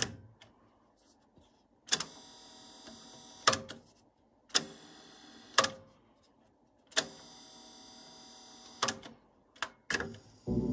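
Pioneer CT-F1000 cassette deck's transport clicking as its buttons are pressed, about eight sharp clicks a second or so apart, with a faint steady motor whir between some of them. Music playback starts again at the very end.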